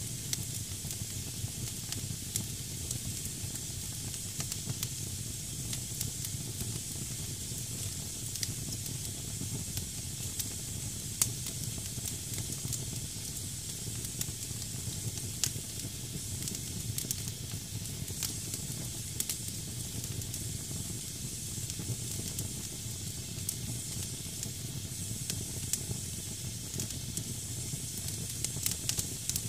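Damp firewood burning in a fireplace: a steady high hiss as moisture steams out of the logs, with scattered sharp crackles and pops throughout.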